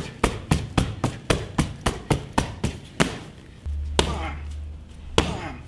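Punches and kicks thudding on a sun-lounger cushion held up as a striking pad. A quick even run of blows comes at about four a second, then there are two heavier single strikes, one near the middle and one near the end.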